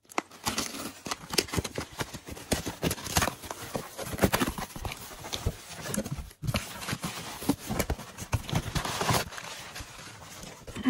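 Packing paper and cardboard being handled and unwrapped: a dense run of crackles, rustles and small knocks, with a brief pause about six seconds in.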